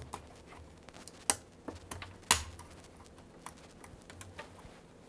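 Plastic wire-harness connectors being handled and pushed into sockets on a Husqvarna Viking Designer SE sewing machine's motherboard: scattered small ticks, with two sharper clicks a little over a second in and about a second later.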